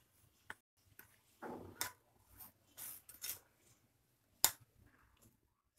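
A hand mixing flour and spinach paste in a glass bowl: soft rustling and scraping of flour, with a few sharp clicks, the loudest about four and a half seconds in.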